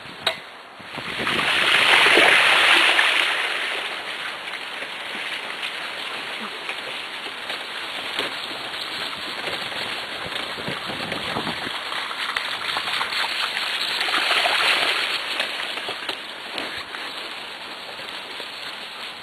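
Wheels of a dog-pulled dryland rig rolling over a gravel track strewn with wet leaves: a steady crunching rush, with two louder rushing swells, one about a second in and another about fourteen seconds in.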